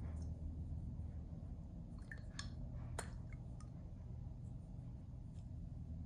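A few small clicks and one sharper tick, about three seconds in, as the cap is pulled off a glass Chanel Coco Mademoiselle perfume bottle, over a steady low hum.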